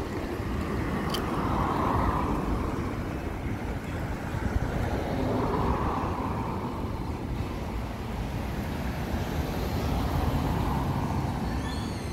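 Road traffic noise: a steady low rumble of motor vehicles that swells and fades about every four seconds.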